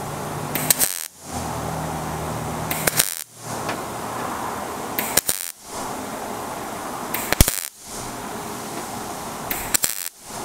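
Millermatic 141 MIG welder laying short tack welds on thin sheet metal: five brief crackling bursts of the arc, each under half a second, about two seconds apart. The tacks overlap and build into a solid seam.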